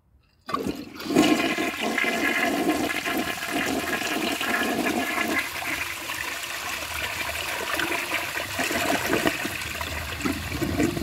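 A restored two-piece toilet is test-flushed. About half a second in, water rushes in suddenly and swirls down the trapway, loudest for the first few seconds. Then quieter running water continues as the bowl refills.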